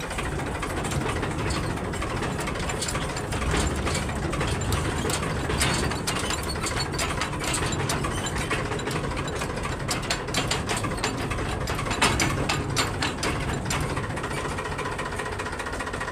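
Farmtrac tractor's diesel engine running at low speed as it moves over a rough field track, with the rear linkage and hitch rattling and clanking irregularly; a louder bout of clanking comes about twelve seconds in.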